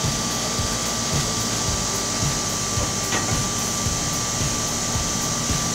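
Steady mechanical drone and hiss with a thin, constant high whine, broken by a few soft low thumps and one faint click about three seconds in.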